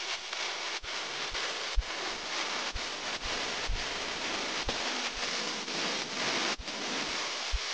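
Steady hiss of rain, with soft low thumps about twice a second.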